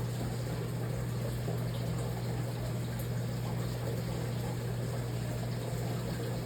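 Aquarium filter running steadily: water trickling and splashing over a low, even motor hum.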